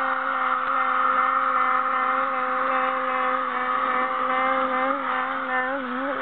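HO scale model train running past with its sound on: the Union Pacific SD70ACe model locomotive's onboard sound playing a diesel engine, over the rolling of the wheels on the track. A steady, buzzy hum whose pitch wavers briefly near the end.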